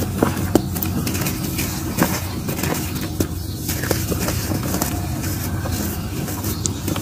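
Hands crushing and crumbling chunks of dried mud, powdery dirt grinding and sifting between the fingers with scattered crisp crunches. A steady low rumble runs underneath.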